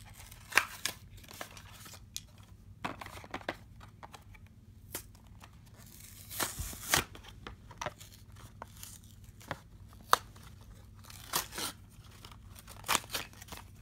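Cardboard-backed clear plastic blister packaging being torn and pulled open, crinkling, with irregular rips and sharp crackles and a longer burst of rustling about halfway through.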